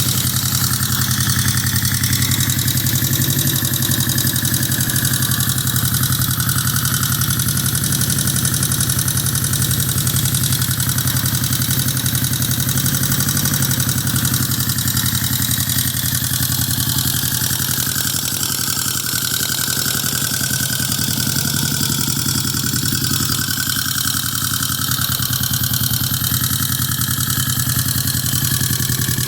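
1971 Honda CB350's air-cooled parallel-twin four-stroke engine idling steadily, running again after ten years of sitting unused.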